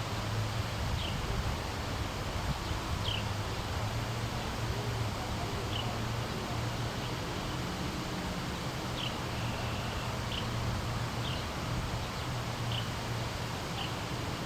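A bird's short, high chirps, each a quick downward slide, repeating irregularly every second or two over a steady low rumble and hiss.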